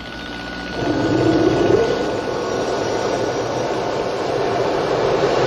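Jet aircraft engine running on the ground: a loud, steady rushing noise that swells just under a second in, with a faint high whine over it for a couple of seconds.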